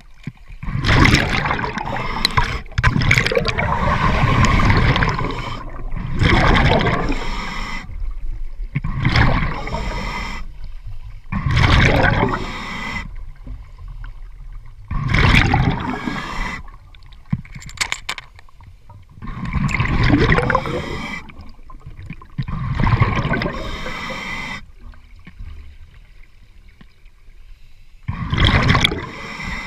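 Scuba diver breathing underwater through an open-circuit regulator: a rush of exhaled bubbles every few seconds, with quieter pauses between breaths.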